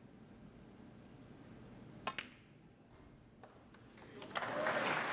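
Snooker balls clicking sharply twice in quick succession about two seconds in, as the cue ball is struck and hits another ball, followed by a couple of faint ball clicks. Then, shortly before the end, the arena crowd breaks into loud applause.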